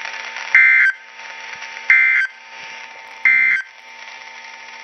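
Weather alert radio's speaker playing the three short, harsh digital data bursts of an Emergency Alert System message, about one and a half seconds apart: the SAME end-of-message code that closes the severe thunderstorm warning. A steady low hiss from the radio runs beneath.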